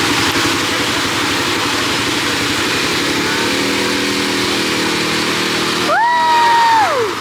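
ATV engine running steadily. About six seconds in, a person cries out in a high voice that rises, holds for under a second, then slides down.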